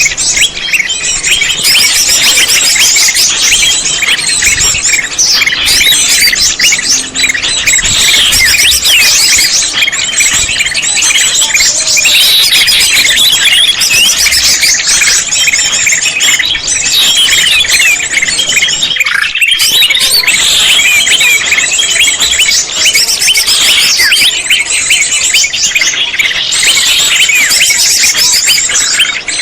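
Greater green leafbird (cucak hijau) song played loud as a trapping lure call: a dense, unbroken stream of rapid chattering chirps and short whistles.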